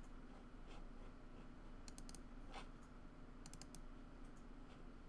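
Faint clicking at a computer: a quick cluster of three or four clicks about two seconds in and another about a second and a half later, over a steady low hum.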